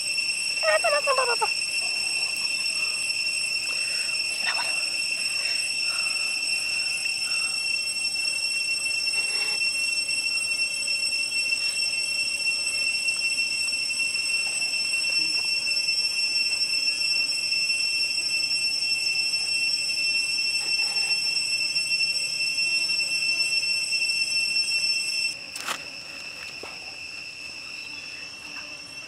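Steady, high-pitched drone of insects in the forest, with a short falling call about a second in and a few faint clicks. Near the end the drone drops in level and its higher part stops, leaving a quieter single tone.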